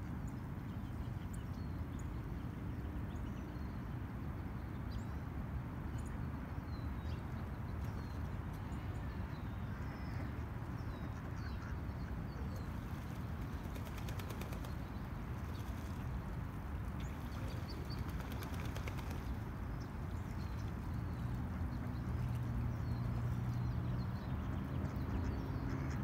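Steady low rumble of distant traffic, with small birds chirping now and then. Mallard ducks start quacking about three-quarters of the way through.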